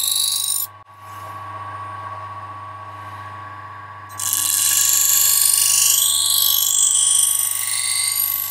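Belt-driven grinding wheel running with a steady motor hum and tone, as a folding knife's steel blade is drawn across it in light passes to regrind the edge bevel. The grinding hiss stops under a second in and starts again about four seconds in, running until the end.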